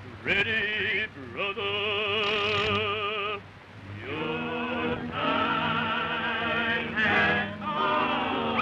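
A chorus of ghostly voices holding long wailing notes with heavy vibrato in three or four drawn-out stretches, with short breaks between them and a quick rising whoop at the start, on a scratchy early-1930s cartoon soundtrack.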